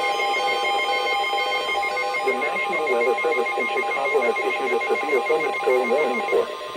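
Emergency alert tones: a steady electronic tone with rapid beeping tones layered over it, the attention signal that precedes a broadcast warning. The beeping stops about six seconds in, and a warbling sound joins the tone about two seconds in.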